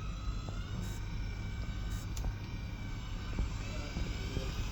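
Small electric motors driving the model's two conveyor belts, running at speed on PWM motor controllers with a steady, high-pitched whine over a low hum.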